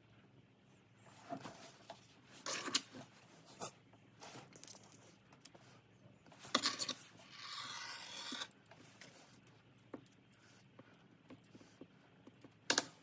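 Small carbon-fibre frame plates, brass standoffs and screws being handled and fitted together by hand: scattered light clicks and taps, with a longer scraping rub about seven seconds in.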